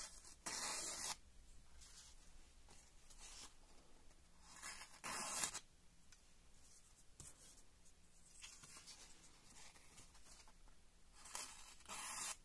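Freshly sharpened Morakniv Fishing Comfort Fillet 090 slicing through a hand-held sheet of paper, three cuts a few seconds apart, each a brief papery swish of under a second. The clean slicing is a sharpness test of the edge just honed on a fine diamond plate.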